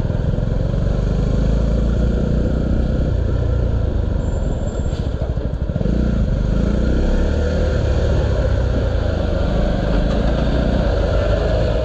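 Honda CB 125cc motorcycle engine running at low speed. It eases off briefly about halfway through, then picks up again.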